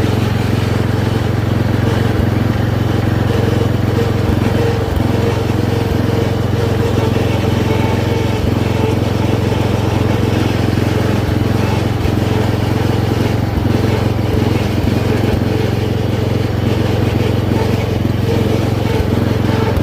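Riding lawn mower's engine running steadily, holding one even pitch with no revving or change.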